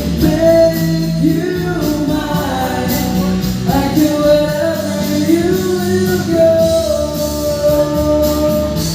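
Live amateur singing into a microphone over an amplified pop-rock band accompaniment. The voice holds long notes and slides between them.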